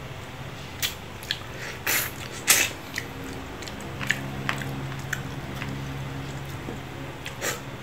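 Cooked lobster shell cracking and snapping as the body is pried apart by hand, mixed with chewing: a string of sharp cracks, the loudest about two and a half seconds in.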